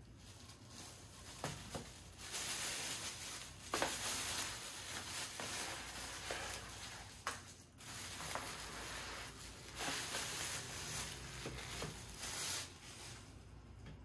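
Crinkling and rustling handling sounds in irregular bursts, with a few small clicks and taps among them.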